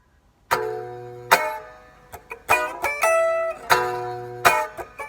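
Alder-bodied Warmoth Jazzmaster electric guitar played with its raw, unprocessed sound: a chord strummed about half a second in and another a second later, then single picked notes and further strummed chords.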